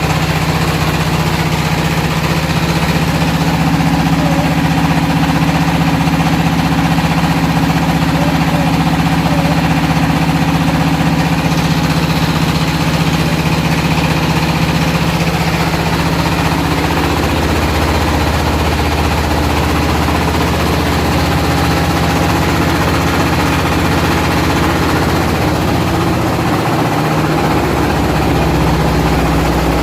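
Floating fish-feed pellet extruder machine running with a steady mechanical drone. Its tone changes a little about halfway through and again near the end.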